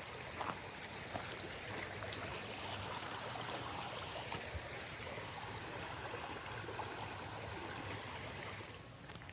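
Small waterfall and stream splashing steadily, a continuous rush of falling water that drops a little quieter near the end.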